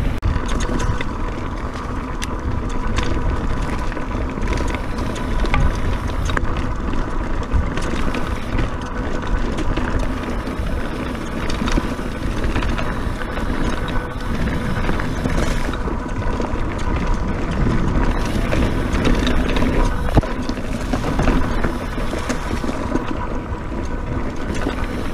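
Mountain bike (a Scott Genius) descending a dirt singletrack at speed: wind rushing over the camera microphone with tyres rolling on dirt, and the bike clattering and rattling over bumps throughout.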